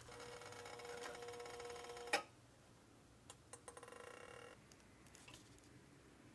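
Faint crackling sizzle of a thin cocoa crepe cooking on an electric hot plate, over a steady high ringing tone. It ends in a sharp click about two seconds in, and a shorter stretch of crackling with a few light ticks comes near the middle.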